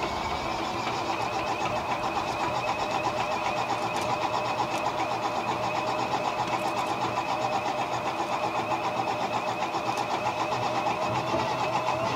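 Spitfire Mk XIV's Rolls-Royce Griffon V12 being turned over by its starter before it fires: a steady high starter whine over an even, quick pulsing as the propeller turns slowly through its compression strokes.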